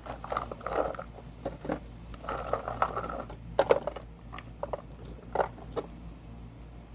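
Fresh green beans being handled and dropped into a baking pan: irregular light rustles and clicks.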